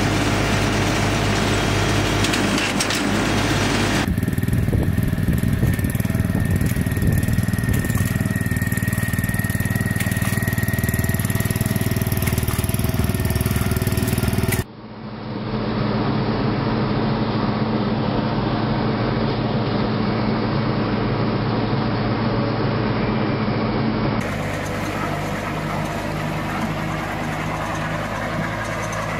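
Farm tractor engines running steadily as they pull planting machines through a field, in clips that cut abruptly from one machine to the next about four, fifteen and twenty-four seconds in. The second clip is a Yanmar walk-behind tractor's engine running, with a faint steady whine over it.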